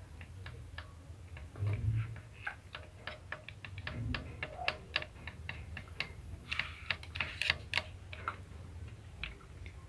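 Light metallic taps and clicks, irregular and several a second, with duller thumps about two and four seconds in: a screwdriver being tapped with another screwdriver to nudge the rotary hook of an industrial straight-stitch sewing machine back, retarding its timing because the hook sits slightly too far advanced.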